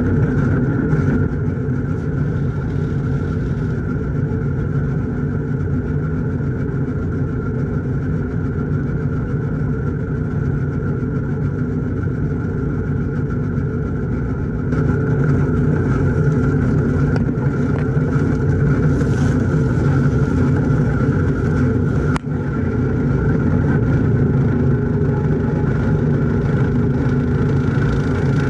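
1941 Farmall H tractor's four-cylinder engine running steadily under load, driving a Gehl corn chopper as corn stalks are fed into it. The sound grows louder and brighter about halfway through.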